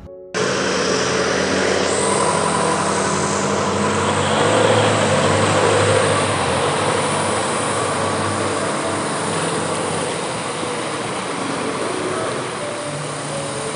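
Floodwater rushing in a loud, steady roar that starts abruptly about half a second in.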